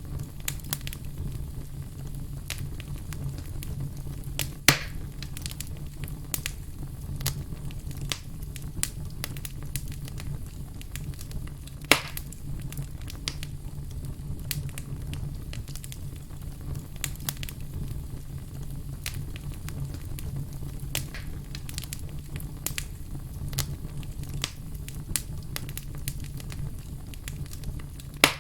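Logs burning in a fireplace: a steady low rumble of flame with constant crackling, and louder sharp pops about five seconds in, about twelve seconds in and right at the end.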